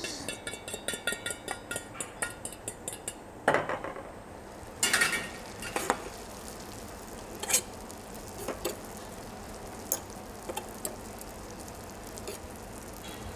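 Beaten eggs and cottage cheese go into foaming butter in a small pan, which sizzles steadily. For the first three seconds a utensil makes a fast run of scraping, tapping strokes, then there are a few separate knocks and clicks of utensil against pan and bowl.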